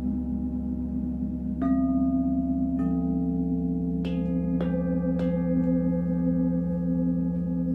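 Singing bowls ringing with long, steady tones; the bowls are struck five more times from about a second and a half in, each strike adding a new tone that rings on over the others.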